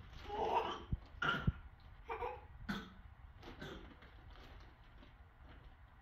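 Short non-word vocal sounds, about five of them in the first four seconds: babbling and a cough-like burst, with a couple of soft knocks among them.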